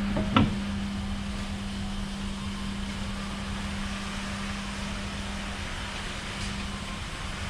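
Steady low mechanical hum of shop machinery, with one sharp knock about half a second in.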